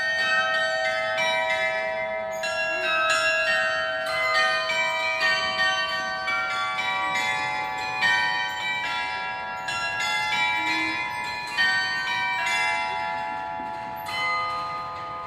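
Carillon of tuned bells playing a melody, many quick strikes overlapping and ringing on. The strikes stop about twelve seconds in and the bells ring out.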